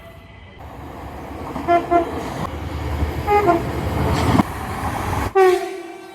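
Train horn giving two pairs of short toots over the rumble of a train that grows louder. Near the end the rumble cuts off suddenly and one longer horn blast follows, dipping slightly in pitch.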